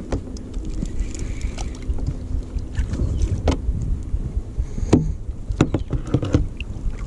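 Kayak paddle working in the water and knocking against the plastic hull of a sit-on-top kayak, over a low rumble. Sharp knocks come in the second half.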